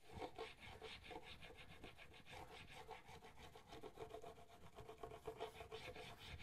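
Hand-forged steel chisel in a Sharp Skate honing guide rubbed back and forth on a wet sharpening waterstone: faint, quick rasping strokes, several a second, raising a burr on the edge.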